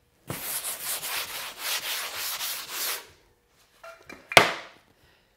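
Hand-sanding a thin coat of plaster on a wall: a rhythmic scrubbing rasp of about three strokes a second that stops about three seconds in. Then two sharp knocks, the second the loudest.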